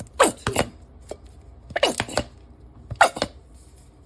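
Kitchen utensils and sauce bottles being handled while tablespoon measures are spooned into a bowl. Three quick clusters of sharp clicks and knocks come near the start, about two seconds in, and about three seconds in.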